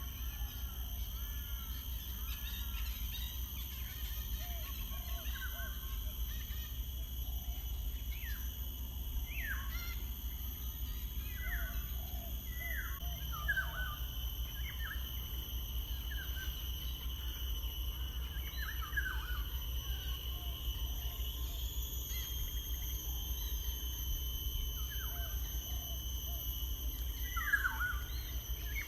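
Several songbirds chirping and calling in short, quick notes, many of them sweeping down in pitch, scattered throughout. Underneath runs a steady high-pitched tone and a constant low rumble.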